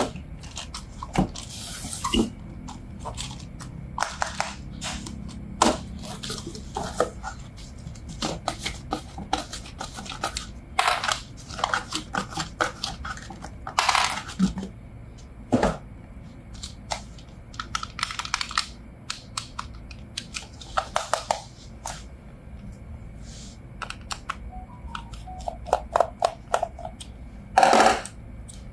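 Hands handling and unpacking toys: scattered clicks and taps with brief rustles of packaging every few seconds.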